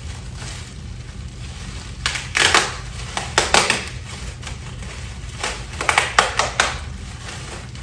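Packaging being handled and pulled apart, with several bursts of crinkling and rustling: a pair about two and a half seconds in, another near three and a half seconds, and a quicker cluster from about five and a half seconds.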